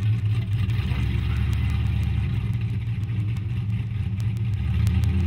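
Chevrolet Camaro V8 running at low revs as the car rolls slowly past, a steady deep rumble.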